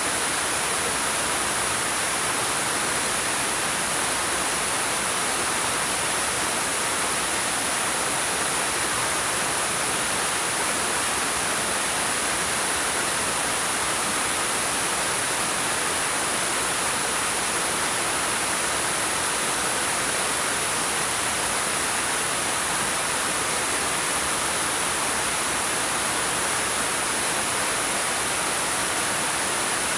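Waterfall pouring over rocks: a steady, unbroken rush of water.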